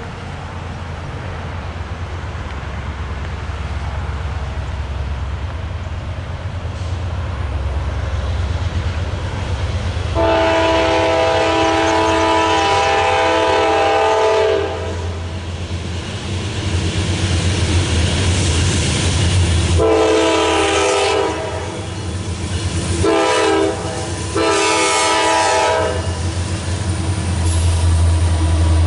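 Norfolk Southern diesel locomotives approaching and passing, their engine rumble growing steadily louder. About ten seconds in, the multi-tone air horn sounds the grade-crossing signal: a long blast, another long, a short, and a final long.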